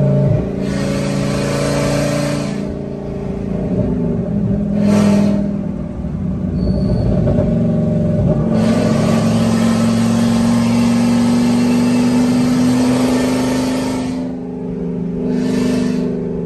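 Engine and road noise heard inside the cab of a Ford moving truck on the move. A steady engine drone rises a little in pitch about five seconds in, with several stretches of louder rushing noise coming and going.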